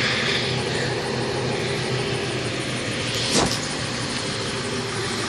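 A vehicle engine idling steadily, with a short knock about three and a half seconds in.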